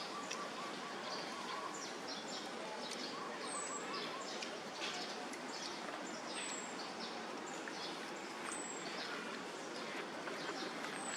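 Outdoor ambience: a steady hiss with a bird repeating a short, high falling whistle about every two to three seconds, among scattered short chirps.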